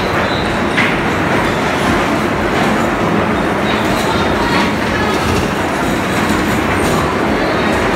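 Electric bumper cars running around the rink: a steady, loud rolling rumble of wheels and motors on the floor, with a few light knocks.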